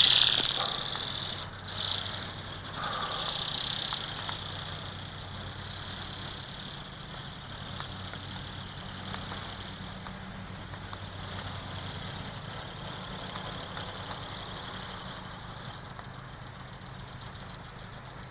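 Small electric motor and flapping wings of an RC ornithopter buzzing steadily in flight, fading over the first few seconds as it moves off, then holding steady.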